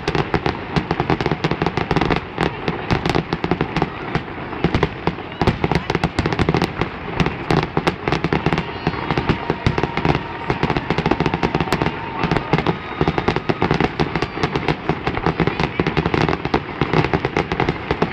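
Fireworks display going off in rapid succession: a dense, unbroken run of bangs and crackles.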